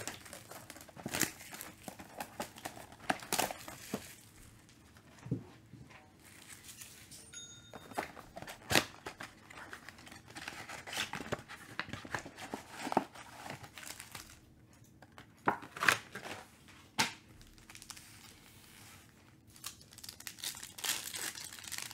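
A cardboard Panini Prism football mega box being torn open by hand and its foil card packs ripped open, with scattered sharp tearing and crinkling.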